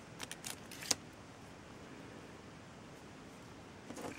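A few soft clicks and rustles of hands handling a rhinestone strip and a candle, the loudest click about a second in, then quiet room tone.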